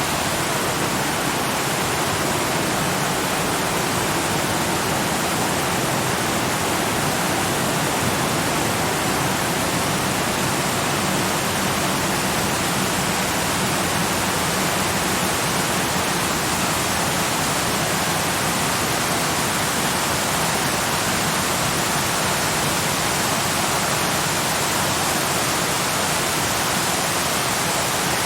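Waterfall rushing steadily: an even, unbroken hiss of falling water that spreads from low to high pitches without change.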